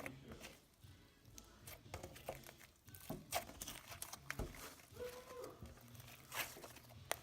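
Butter slime being handled by hand, making irregular soft clicks, crackles and sticky tearing sounds.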